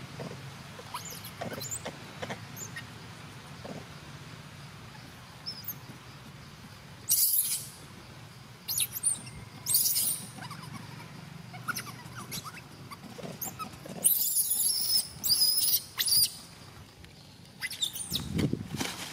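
Baby monkey crying in shrill, high-pitched squeals: a few faint squeaks at first, then loud cries about seven and ten seconds in and a longer bout from about fourteen to sixteen seconds. These are distress cries as an adult monkey handles it roughly.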